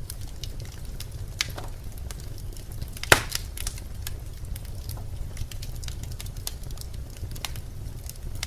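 Birch logs burning in a fireplace, crackling with scattered small pops and one loud sharp pop about three seconds in, over a low steady rumble of the fire.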